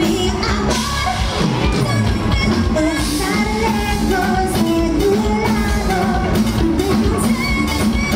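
Live cumbia orchestra playing, with a woman singing the lead over a steady bass and percussion beat.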